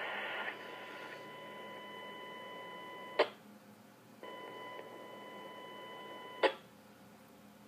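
A steady beep tone on a police radio channel, heard through a live scanner audio feed: it is held about two and a half seconds, cut off by a sharp click, then sounds again for a similar length and ends in another click, leaving faint hiss.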